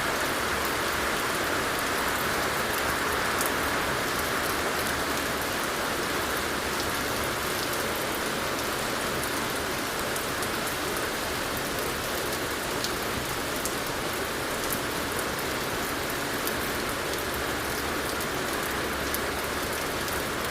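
Steady, even rain falling, with fine scattered drop ticks in the hiss.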